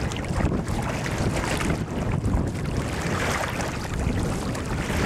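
Wind buffeting the microphone as a steady low rumble, with choppy water splashing against a kayak's hull.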